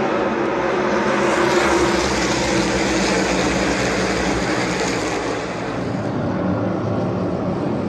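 A pack of NASCAR Cup Series stock cars racing on the oval, their V8 engines blending into one loud, continuous drone that eases slightly about five and a half seconds in.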